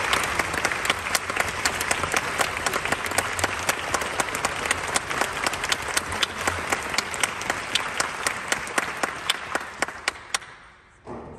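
Audience applauding, with one pair of hands close by clapping sharply about four times a second. The applause dies away near the end, and a short dull sound follows.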